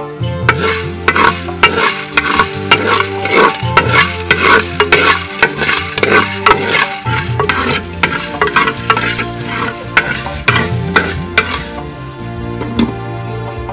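A spoon stirring and scraping food around inside a pot on the fire, in quick strokes about two or three a second, with a light sizzle; the strokes thin out near the end. Soft background music runs underneath.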